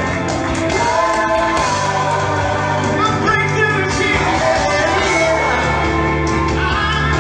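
Gospel worship music: a band with sustained bass notes under singing voices, playing continuously at a steady level.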